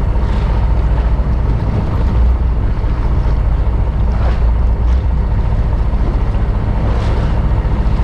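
Fishing boat's engine running steadily, with wind buffeting the microphone and waves splashing against the hull now and then.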